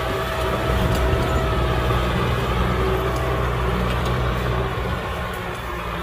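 Kubota M6040 SU tractor's diesel engine running steadily under load while pulling a plow through mud.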